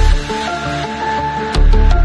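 Electronic background music with a steady melodic line over a deep bass. The bass drops out just after the start and comes back with a hit about a second and a half in, followed by quick high ticks.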